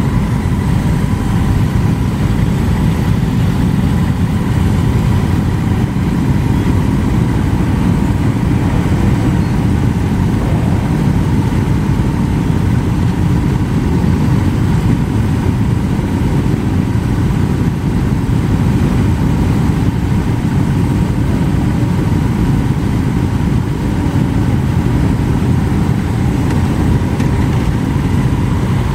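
A large pack of motorcycles idling and crawling along at walking pace, their engines blending into one steady low rumble with no single rev standing out.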